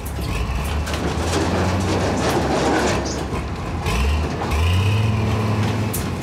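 Heavy excavator diesel engines running under the load of a cable recovery, a low steady drone that steps up in pitch about four seconds in, with a rushing noise over it.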